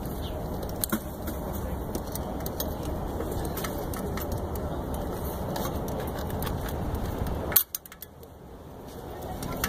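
Small metallic clicks and light rattles of needle-nose pliers and wiring being handled in an engine bay, over a steady background noise. A sharp click comes about seven and a half seconds in, after which the background briefly drops away.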